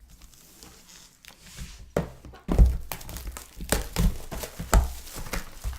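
Trading-card boxes and wrappers handled on a tabletop: a sharp click about two seconds in, then a run of dull thuds and knocks with some crinkling.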